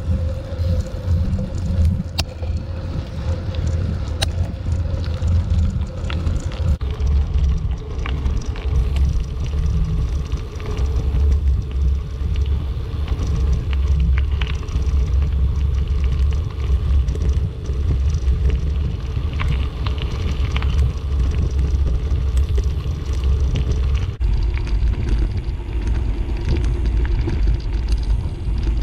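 Wind buffeting a moving camera's microphone: a loud, uneven low rumble, with a few faint clicks or knocks.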